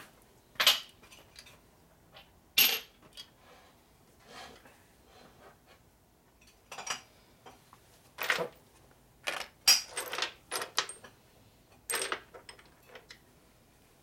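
Metal hand tools and parts clinking and clattering on a steel workbench as they are picked up and set down, in a dozen or so separate sharp clinks with a quick cluster of them a little past the middle.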